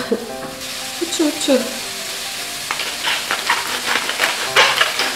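Wooden pepper mill twisted over a frying pan, a run of crunchy grinding crackles from about halfway through, over the low sizzle of a stir-fry of eggplant, zucchini and minced pork.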